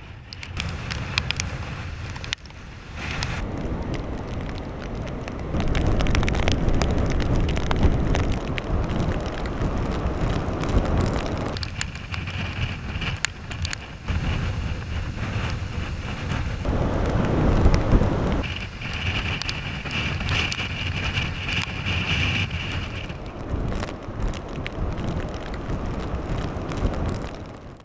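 Hurricane-force wind gusting hard across the microphone, a loud low buffeting that swells and drops in gusts. A thin, steady high hiss comes in twice in the second half.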